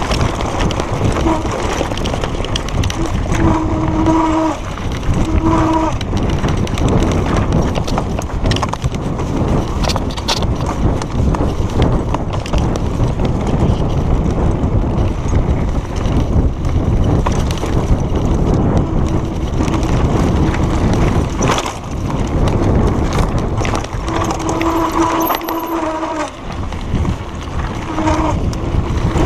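Mountain bike clattering down a rocky trail: a constant rush of wind and tyre noise with knocks and rattles from the bike over the stones. Several short, steady squeals from the brakes come in bursts near the start and again near the end.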